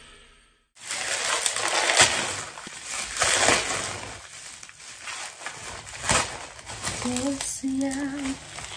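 Clear plastic packaging crinkling and rustling as a parcel is unwrapped by hand, with several sharper crackles. A few short vocal sounds come near the end.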